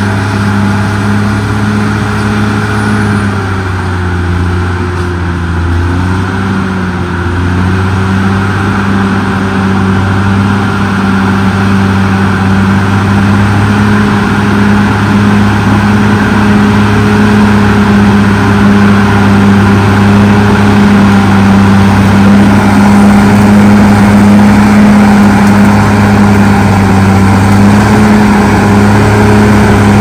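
CAT D6R XL crawler bulldozer's diesel engine running steadily as the dozer pushes dirt with its blade. Its pitch dips briefly a few seconds in, then holds steady while the sound grows gradually louder.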